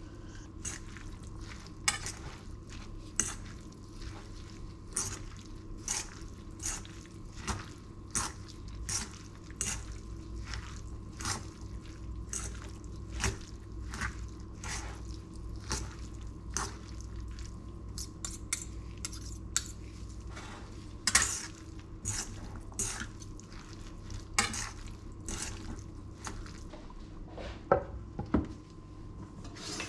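Handling a stainless steel mixing bowl of salad: irregular clinks and taps against the metal, about one a second, as the salad is tossed by hand, with a sharper knock near the end. A faint steady hum runs underneath.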